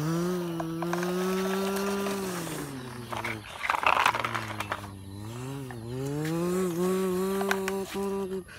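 A person imitating a truck engine with their voice: a hummed drone that rises in pitch, holds and sinks again, twice, with a short break about three and a half seconds in filled by a brief noisy burst.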